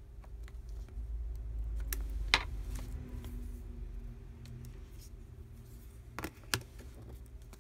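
A few sharp, small clicks and taps from a disassembled Samsung Galaxy S4 smartphone, a plastic pry tool and the phone's battery being handled on a desk. The loudest click comes about two seconds in and two more close together near the end, over a low steady hum.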